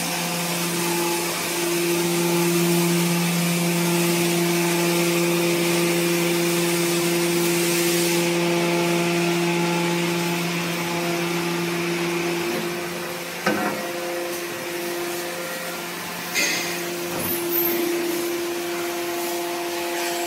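Hydraulic cardboard baling press running with a steady motor-and-pump hum. About two-thirds of the way through, the lower part of the hum drops out with a sharp knock, and a couple more knocks follow.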